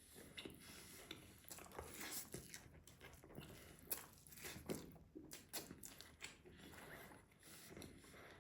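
Close-miked eating sounds of rice and meat being chewed: soft, irregular mouth smacks and clicks, with a sharper click about four seconds in and again about five seconds in.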